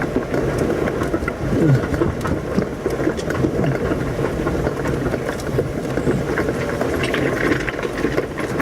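Jeep Wrangler engine working at low speed as it crawls over rock, its pitch rising and falling with the throttle, with rattling and knocks from the vehicle and tyres on stone.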